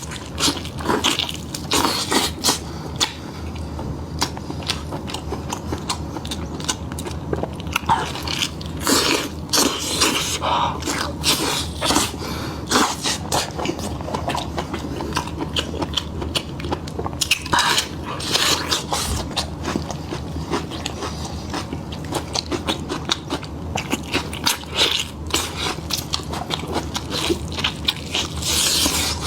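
Close-miked eating: biting and chewing meat, with many short crunching clicks at irregular intervals over a steady low hum.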